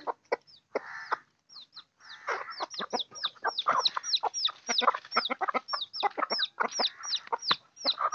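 Chickens feeding, with rapid high peeps that fall in pitch, several a second, typical of chicks, over lower clucks from the adult birds.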